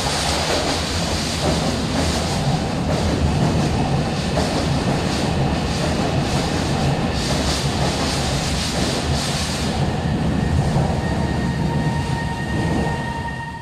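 Beijing Subway Fangshan line BDK03 metro train, with CRRC Times IGBT VVVF traction, passing through the platform at speed without stopping: a steady loud rumble of wheels and running gear. A steady high whine comes in near the end as the train draws away.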